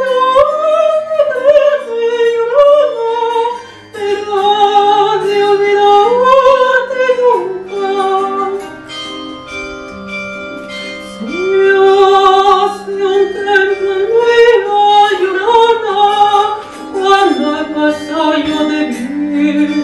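Countertenor singing high in the alto range, holding long notes with vibrato over a quieter instrumental accompaniment.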